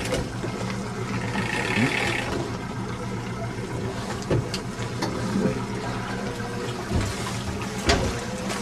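Boat's outboard motor running steadily at low trolling speed, under the rushing and slapping of water along the hull. A few light knocks come through now and then.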